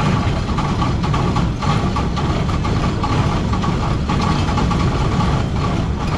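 Large farm diesel engine running steadily at idle just after a cold start, with a faint steady whine over the low engine sound.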